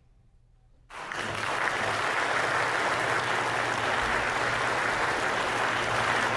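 Audience applauding: after about a second of near quiet it starts abruptly and then runs steadily.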